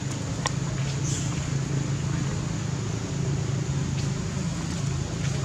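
Steady low engine hum, with one brief high squeak about half a second in.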